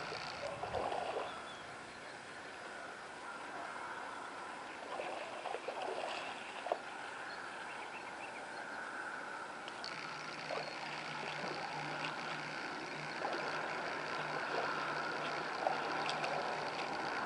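Water sloshing and gurgling around a submerged camera on a small remote-controlled craft, over a steady whine from its electric motor. A lower steady hum joins about ten seconds in, with small clicks here and there.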